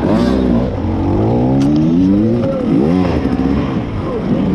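Beta enduro motorcycle engine revving: a quick blip, one longer, slowly rising rev, then several short blips. A single sharp click sounds about a second and a half in.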